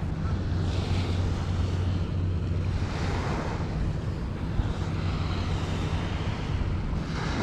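Wind on the microphone and small waves washing onto a beach, swelling softly now and then, over a steady low hum.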